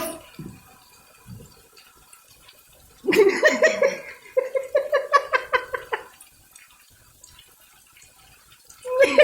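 A high-pitched voice: a drawn-out call about three seconds in that breaks into a quick run of short repeated pulses, then another call near the end.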